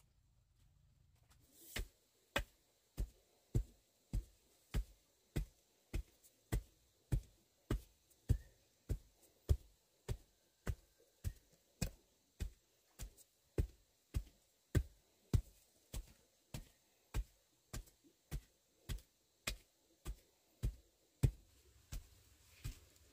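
A long run of heavy thuds, even blows about one every 0.6 seconds, starting about two seconds in and varying in strength.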